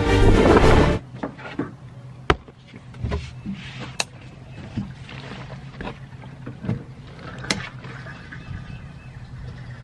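A loud, dense stretch cuts off about a second in. After it, hands handle yellow plastic containers, making scattered sharp clicks and knocks over a steady low hum.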